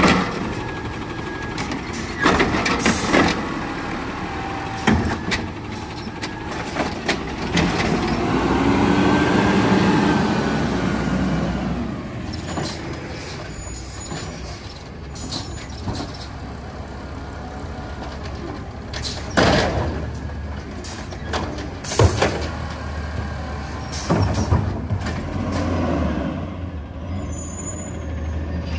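Garbage truck working its collection route: the engine runs steadily, swells up and back down about a third of the way in, and is broken by several sharp hisses or knocks of the kind air brakes and handled bins make.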